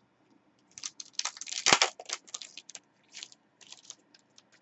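A Select Footy Stars trading-card pack wrapper being torn open and crinkled by hand: a run of tearing and crinkling about a second in, loudest near the middle, then a few shorter crinkles.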